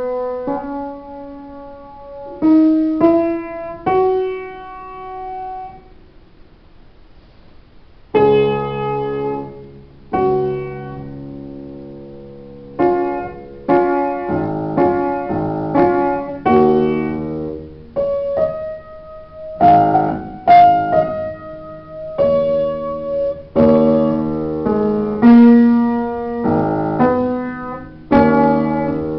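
Upright piano played solo: a few single melody notes that ring and fade away about six seconds in, then fuller playing with chords and a bass line from about eight seconds in.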